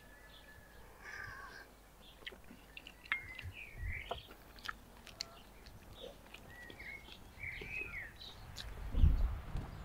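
Birds calling now and then in the background, mixed with light clicks of a spoon on small dishes and chewing close by. About nine seconds in, a louder low thump and rumble.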